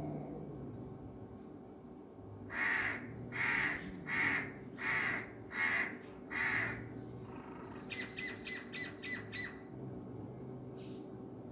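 A crow cawing six times in an even series. A few seconds later comes a quick run of short, high chirps.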